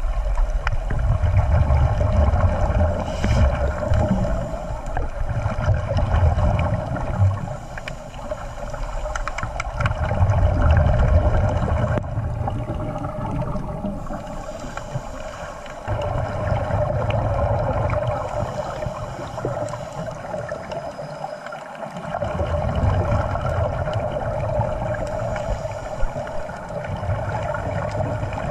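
Underwater sound picked up by a camera in a waterproof housing during a scuba dive. A steady drone sits under surges of low rumbling and bubbling that come and go every few seconds.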